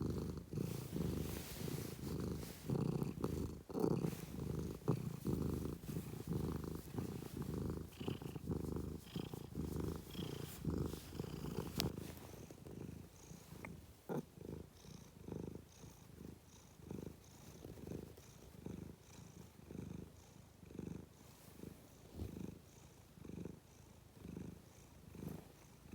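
Domestic cat purring, a low rumble pulsing in a steady rhythm that grows fainter about halfway through.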